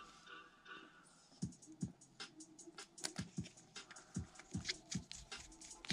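Small irregular clicks and scratches of a hex driver working tiny beadlock-ring screws into a TRX4M crawler wheel, the screws just starting to grab their threads; the clicks begin about a second and a half in, over faint background music.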